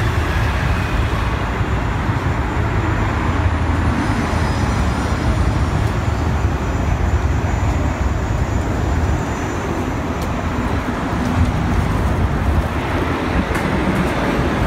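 Steady city traffic noise: road vehicles passing on the street and the elevated expressway overhead.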